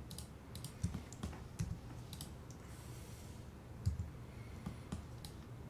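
Computer mouse and keyboard clicks at irregular intervals, with a few duller thumps among the sharper clicks.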